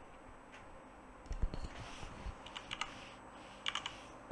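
Computer keyboard typing: three short clusters of key clicks over a faint background.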